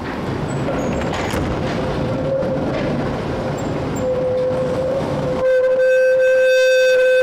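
Tatra T3SUCS tram rumbling along its rails. About four seconds in a steady squeal sets in, and it turns loud and shrill about a second later, typical of tram wheels squealing as they round a curve in the track.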